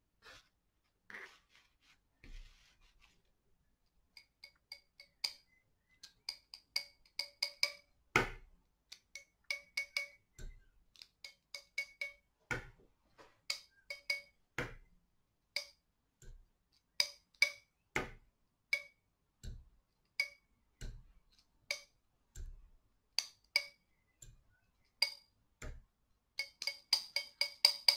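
A steel palette knife struck again and again with short, sharp clicks, each with a brief metallic ring, as white gouache is spattered off it onto the painting. The taps come in small bursts and grow quicker near the end.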